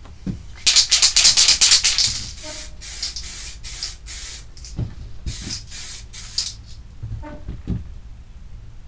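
Aerosol can of DuraBlue spray-on bluing hissing in short bursts as a light coat is sprayed on: a quick run of short puffs about a second in, then several longer sprays, with a few soft handling knocks.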